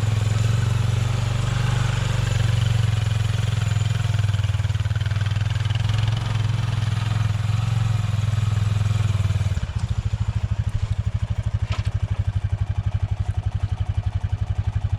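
Honda Pioneer 500 side-by-side's single-cylinder engine running steadily. About ten seconds in it changes to an even, chugging pulse.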